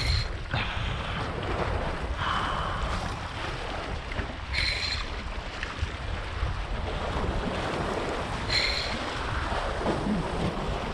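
Wind buffeting the microphone over sea waves washing against a rock jetty, with three short high-pitched sounds about four seconds apart.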